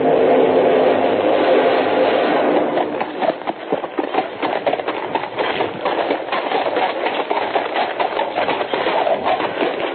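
Galloping horse hooves, a radio-drama sound effect, clattering in quick irregular beats after a fading wash of sound in the first couple of seconds.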